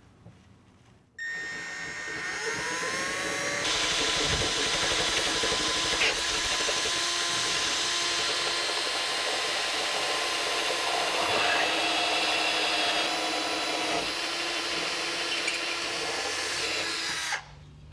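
Cordless drill with a 5/16-inch twist bit boring a bolt hole through thick aluminum. The drill starts about a second in, its pitch rising briefly as it spins up, then runs steadily as the bit cuts, and stops shortly before the end.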